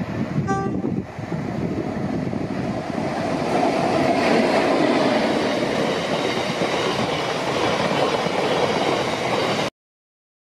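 Class 60 diesel locomotive's train of biomass hopper wagons passing close by: steady wheel-on-rail noise that builds over the first few seconds, with a short pitched tone about half a second in, then cuts off suddenly near the end.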